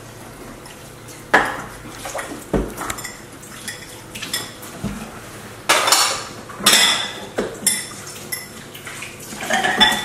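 Dishes, pots and cutlery being handled, giving irregular clinks and clatters, about half a dozen separate ones spread over the few seconds.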